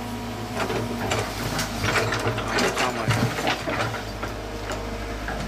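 Komatsu PC120-6 hydraulic excavator's diesel engine running steadily while its bucket works through cut branches and soil, with repeated clicks and crackling snaps.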